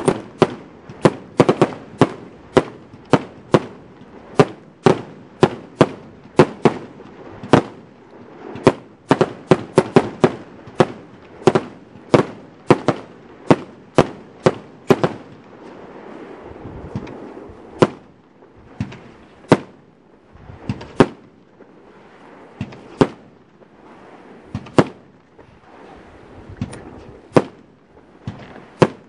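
Steyrfire Party Power 207 firework battery firing shot after shot. Sharp reports come about two a second for the first half, then thin out to irregular shots a second or more apart, with a hiss between some of them.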